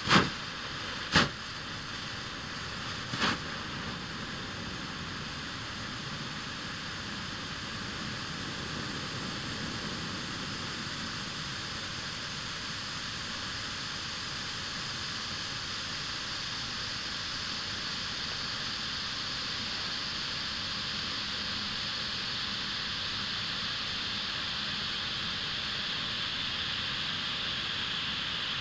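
Three orange Bengal flares burning with a steady hiss that grows slightly louder, after a few sharp pops in the first few seconds as they catch.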